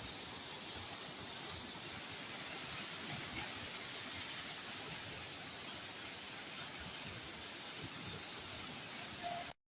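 Steady, even hiss of background noise that cuts off abruptly near the end.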